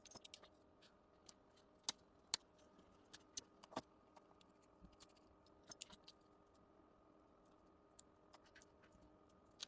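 Scattered small, sharp clicks and taps of hand tools and small metal parts being handled on a workbench, the two loudest about two seconds in, over a faint steady hum.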